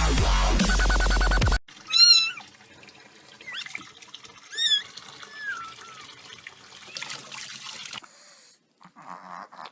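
Electronic dance music with a heavy beat cuts off suddenly about a second and a half in. A cat then meows about four times over a faint steady hiss; the meows about two and five seconds in are the loudest.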